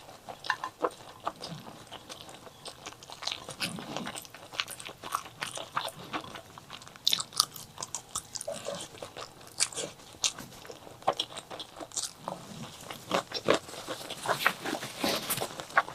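Close-miked eating of chili and white rice: chewing and biting with many small, irregular crunches and clicks.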